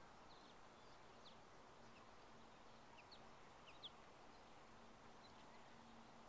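Near silence with faint short bird chirps, about half a dozen scattered through, over a faint low steady hum.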